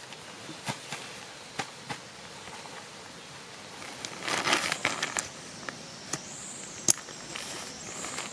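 Backpack and camping gear being packed: fabric rustling and crinkling, with a denser rustle about four seconds in and several sharp separate clicks. A faint high wavering tone comes in near the end.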